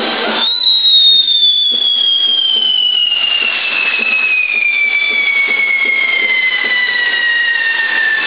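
Pyrotechnic whistles on a toro de fuego (fire bull) starting about half a second in: a loud, high whistle that slides steadily lower in pitch as the charge burns down, with a couple of fainter whistles alongside, over the crackling hiss of spark fountains.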